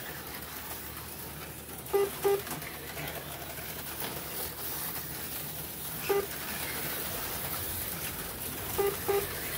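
HO-scale slot cars running around a multi-lane track, a steady whir, broken by short electronic beeps: two close together about two seconds in, one about six seconds in, and two more near the end.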